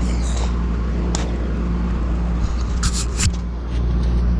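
A running engine's steady low hum, with a few short scrapes about a second in and again around three seconds.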